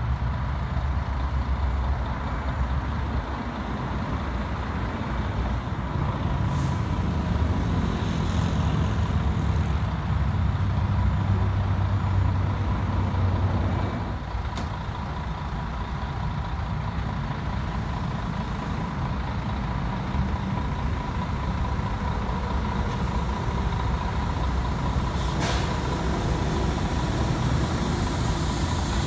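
Heavy diesel truck engine idling steadily, with a few short hisses of compressed air, typical of a truck's air brake system.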